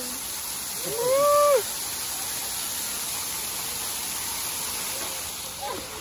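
Jets of an interactive ground fountain spraying in a steady hiss all around. About a second in, a person gives one short whoop that rises and falls in pitch, louder than the water.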